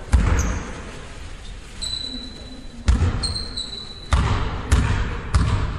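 A basketball bounced on a hardwood gym floor, each bounce a sharp thud ringing in the large hall. There are five bounces: two spaced apart, then a quick even run of three about half a second apart near the end. Two brief high-pitched squeaks come in between.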